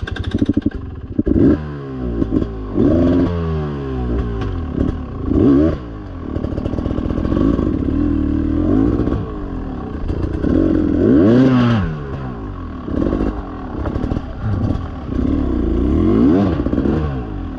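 Dirt bike engine revving up and down again and again as the throttle is worked hard on a steep hill climb.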